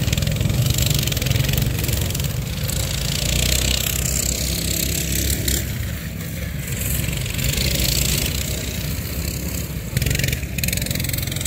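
Small minibike engines running as several box stock minibikes race around a dirt track.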